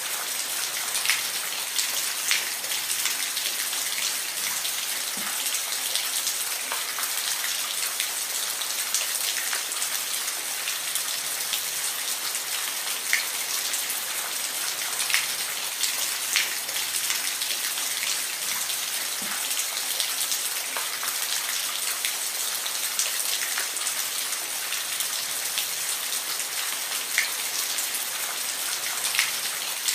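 Steady rain falling, a continuous hiss with scattered individual drops ticking sharply on a hard surface.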